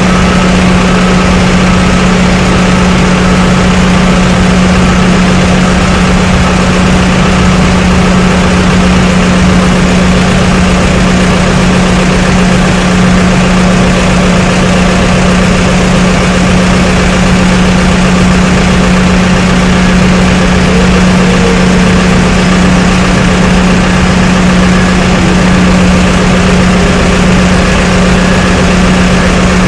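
Loud, steady drone of running machinery, a strong low hum over a constant rushing noise, with no breaks or changes.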